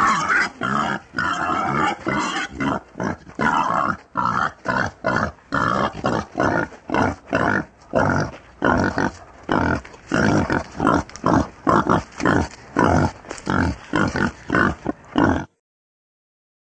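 Pigs grunting in a quick, steady run of short grunts, about two to three a second, which stops suddenly near the end.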